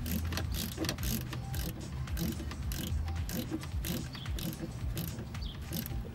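Hand ratchet wrench clicking in short, uneven strokes while a bolt is turned into the engine block.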